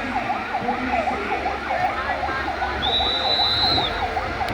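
Emergency vehicle sirens sounding together, one a fast yelp sweeping down and up about four times a second, with other sirens gliding over it. A high steady tone, like a whistle, lasts about a second in the second half.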